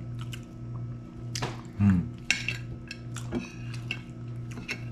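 Metal spoons scraping and clinking against a ceramic plate as waffle and ice cream are scooped up, with a scatter of short, sharp clinks over a steady low hum.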